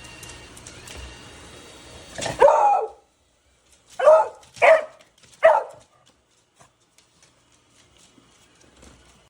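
A dog barking four times: one longer bark about two seconds in, then three short barks about half a second to a second apart.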